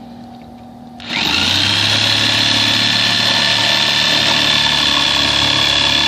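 A power tool starts about a second in, rising quickly to speed, and then runs steadily with a high whine, cutting through a folding work trestle.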